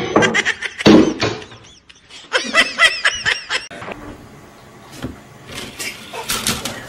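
People laughing: a rapid, high-pitched run of giggles, strongest about two and a half to three and a half seconds in, followed by a few sharp clicks near the end.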